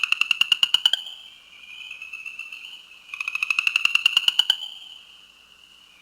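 New Jersey chorus frog calling: rapid pulsed trills that rise slightly in pitch, one ending about a second in and another starting about three seconds in and lasting a second and a half, with a fainter trill between them.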